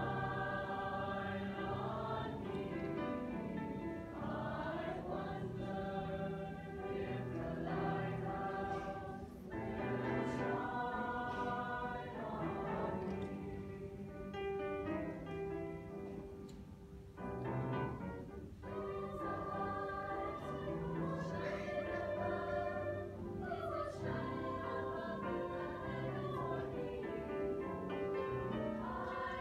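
Mixed-voice eighth-grade choir singing together in sustained phrases, with brief breaks between phrases.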